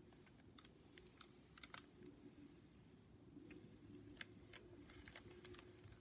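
Near silence broken by faint, irregular light clicks and taps from a picture book being handled at its page edge.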